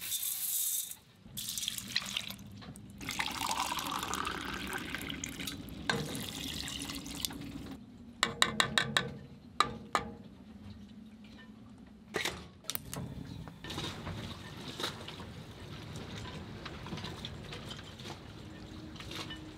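Cooking in a steel pot: dry red lentils poured in with a short hiss at the start, then liquid being poured, and quick metallic clinks against the pot a few times later on.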